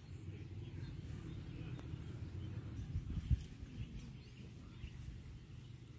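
Outdoor rural ambience: a steady low rumble on the phone microphone, a couple of dull knocks a little over three seconds in, and faint bird chirps.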